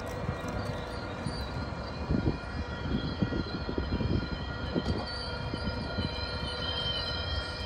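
Approaching MBTA commuter rail train, still out of sight: a steady low rumble with a high, wavering whine over it, growing slowly louder near the end.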